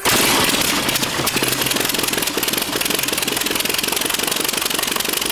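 A small engine running fast with a rapid, even firing beat; it starts suddenly and fades away near the end.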